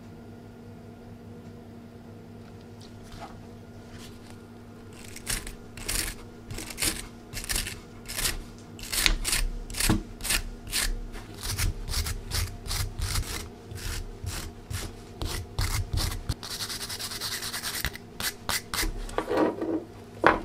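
Scrubbing strokes on a rusty nail against a wooden board, about two a second, starting some five seconds in, with a stretch of steady rubbing near the end.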